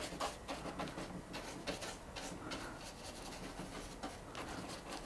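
Paintbrush scrubbing white glue across a diorama base: a run of soft, irregular scratchy brush strokes, several a second.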